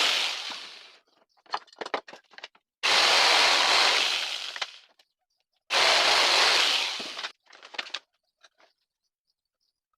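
Workshop noise while working small wood pieces: three loud rushing bursts, each cutting in sharply and tailing off over about a second, with light clicks and knocks of wood between them.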